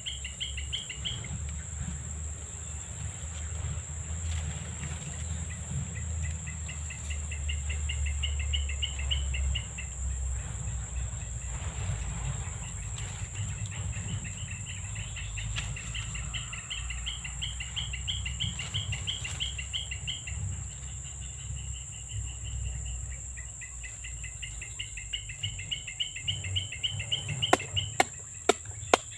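Insects chirping in rapid pulsed trills lasting several seconds at a time, repeating, over a steady high-pitched insect whine. A low rumble sits underneath, and a few sharp knocks come near the end.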